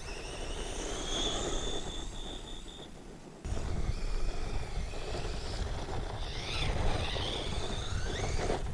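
Small brushless electric RC truck (ZD Racing Rocket, 1/16 scale, 2S LiPo) running fast on asphalt: a high motor whine that rises and falls with the throttle over a haze of tyre and wind noise. The sound changes abruptly a little over three seconds in.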